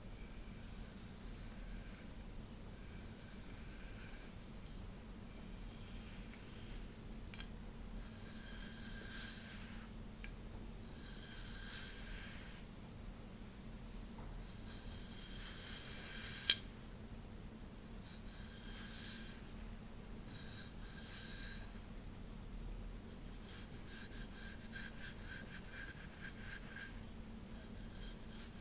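Repeated soft swishing strokes through long hair, each a second or two long, with a sharp click past the middle as the loudest sound.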